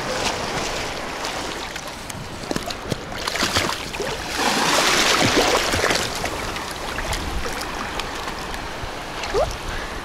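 Shallow sea water sloshing and splashing around a person wading and a small dog swimming. A louder splash lasting about a second comes about five seconds in.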